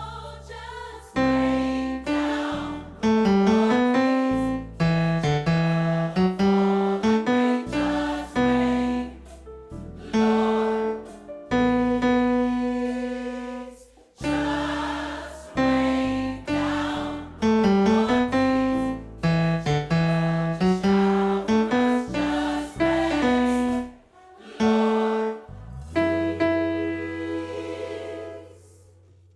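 Gospel choir music: a sung tenor line of held, stepping notes with some glides, over sustained low keyboard notes.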